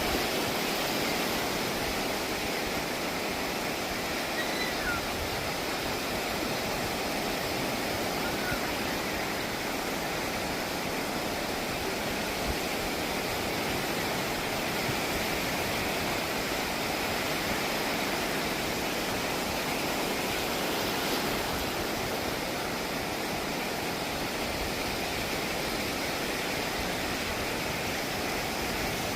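Sea waves and surf making a steady rushing wash, with no separate wave crashes standing out.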